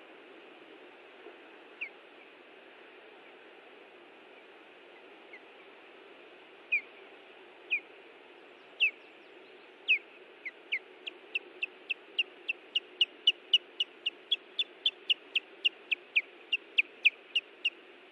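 Osprey alarm calls at the nest, given while defending it: a few spaced, sharp whistled notes, then from about ten seconds in a fast run of short, down-slurred chirps, about three a second, over a steady hiss.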